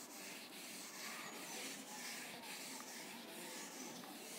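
Faint rubbing hiss of a cloth wiping a whiteboard, swelling and fading with repeated back-and-forth strokes.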